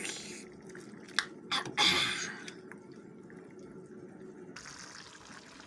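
A pot of black bean stew simmering with a steady low bubbling, with a few sharp clicks and a brief louder splashy stir about two seconds in.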